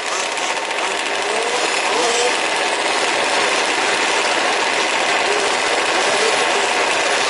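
Several 1/5-scale petrol RC trucks racing, their small two-stroke engines buzzing together in a steady, dense din, with an engine's pitch rising and falling now and then as it revs.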